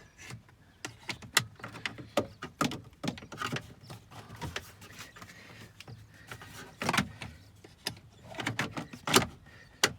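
Plastic clicks and knocks of a Jeep's fuse box door being handled and snapped into place under the dash, with the sharpest snaps about seven and nine seconds in.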